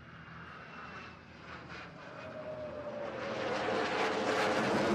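F-22 Raptor's twin F119 turbofan jet engines, the noise growing steadily louder as the fighter closes in. A whine in the jet noise slowly falls in pitch over the second half.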